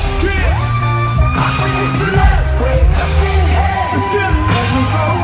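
Live hip-hop performance played loud over an arena sound system, with heavy bass and a rapped and sung vocal, and the crowd yelling along.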